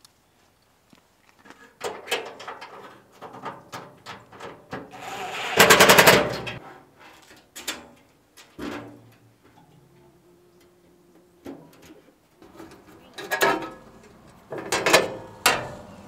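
Stainless-steel grill parts and hardware clanking and knocking as they are handled and fitted during assembly, with a loud, rapid rattle lasting about a second about six seconds in.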